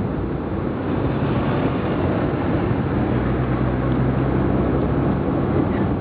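Car engine and road noise heard from inside the cabin while driving, a steady low hum that comes up a little from about a second in.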